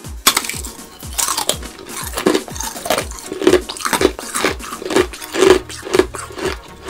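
Hard candy lollipop being bitten and chewed: a run of crisp crunches, about two a second.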